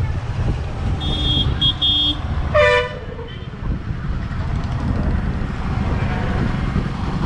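Road vehicle horns honking over the steady low rumble of riding in traffic: a high-pitched horn beeps three times about a second in, then a louder, lower horn blasts briefly a moment later.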